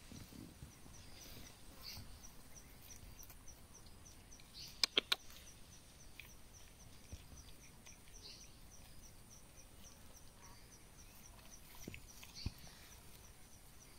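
Faint outdoor background with a high chirp repeating evenly about three times a second. A quick run of three sharp clicks comes about five seconds in.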